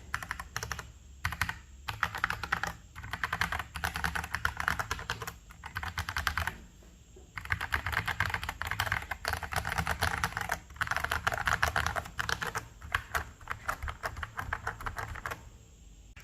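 Fast typing on a KBD67 Lite R2 mechanical keyboard with stock Feker Panda tactile switches (a Holy Panda clone) and Cherry-profile keycaps, in bursts of rapid keystrokes with a few short pauses. The typing stops shortly before the end.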